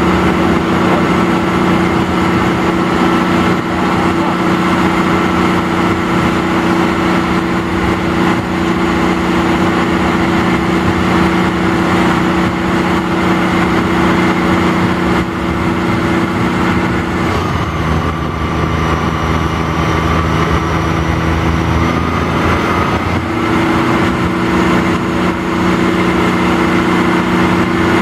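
Truck-mounted crane's diesel engine running steadily while the crane lifts a load. A little past the middle the engine note changes for several seconds, then settles back to its earlier pitch.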